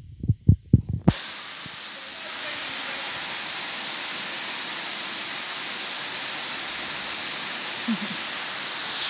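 Waterfall pouring into a rock pool: a steady rushing hiss that starts suddenly about a second in, after a few dull low thumps.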